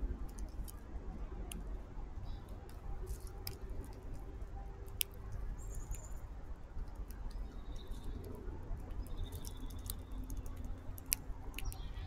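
Red-bellied woodpecker pecking at a suet cake in a wire cage feeder: irregular sharp taps and clicks. Faint short bird chirps in the background and a low rumble underneath.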